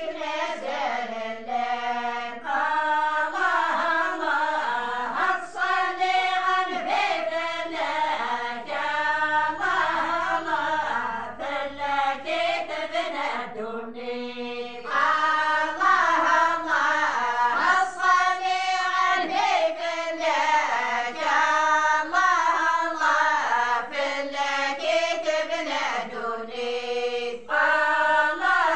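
A group of women singing an unaccompanied Amazigh (Berber) religious praise song together, phrase after phrase with brief pauses for breath. It grows louder about halfway through.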